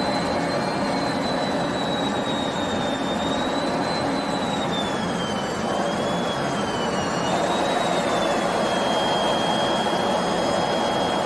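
Steady jet engine noise and rushing air heard inside an aircraft cockpit in flight, with a high whine that wavers slightly in pitch.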